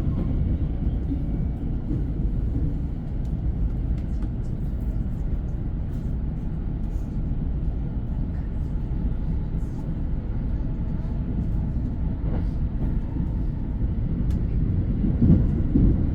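Train running along the track: a steady low rumble with a few faint clicks, swelling slightly near the end.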